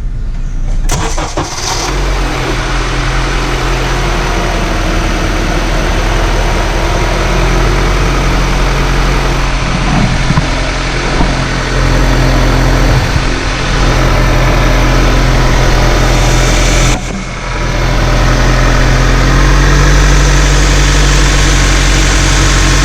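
Honda CR-V engine starting about a second in and then idling steadily, with no power steering whine: the pump is running quietly on its new pressure-line O-ring. The sound breaks off briefly about two-thirds of the way through, then runs on a little louder.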